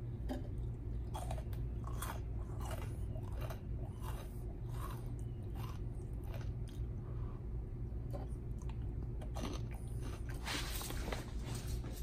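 A man biting crumbly chunks of food out of a wooden bird-feeder tray and chewing them, with a crunch every second or so and a louder run of crunching near the end, over a steady low hum.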